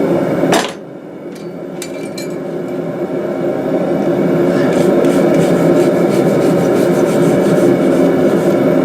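Rubbing and scrubbing on a forged iron hook, working the forge scale off it, with fine rapid scratchy strokes toward the end. A steady low drone underneath drops sharply about half a second in and builds back up over the next few seconds.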